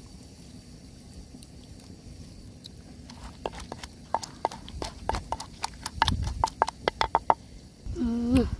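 Wooden pestle pounding chillies, garlic and lime juice in a wooden mortar: a run of quick wet knocks, about four or five a second, starting about three seconds in. Near the end, a short hummed "mmm" as the paste is tasted.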